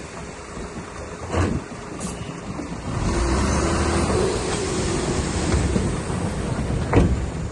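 DH17 C2 LGP crawler bulldozer's diesel engine running, louder from about three seconds in as it works, with two sharp knocks, one shortly after the start and a stronger one near the end.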